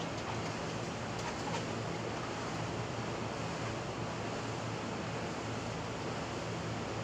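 Steady outdoor background noise, an even hiss with a faint low hum underneath and no distinct events.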